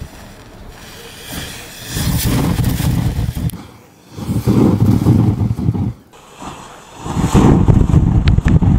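Match heads packed in a plastic Coca-Cola bottle flaring up, a rushing whoosh of flame jetting from the neck. It comes as three separate bursts, each about a second and a half long, with quieter stretches between.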